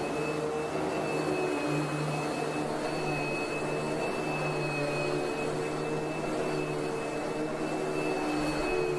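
Vacuum cleaner motor running steadily, a rushing hum with a thin high-pitched whine over it.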